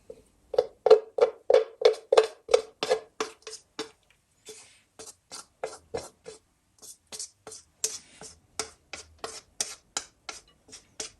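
Wok scraped with a cooking utensil to free noodles stuck to the pan by soy sauce, in quick repeated strokes about three a second, the wok giving a short ringing note on each stroke.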